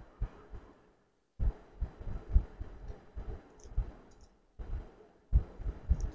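Eating sounds at a dining table: irregular soft low knocks and faint clicks as rice is eaten by hand from a plate, with two short gaps of silence.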